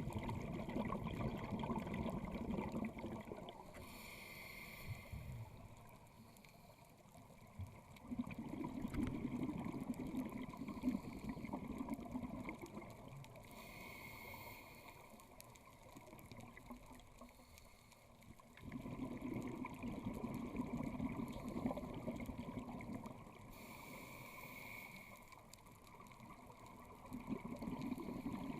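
Scuba diver breathing underwater through a regulator. Each breath is a short hiss of inhalation, then several seconds of exhaled bubbles, in a slow cycle about ten seconds long, heard three times.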